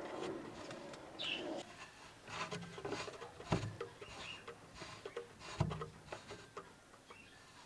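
Handling noise from unboxing a jointer planer: rubbing and scraping with scattered clicks, and two dull thumps, one about halfway through and one about two-thirds of the way through. A bird chirps briefly near the start.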